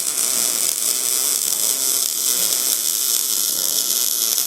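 MIG welding arc: a steady, loud crackling hiss as a bead is run on steel.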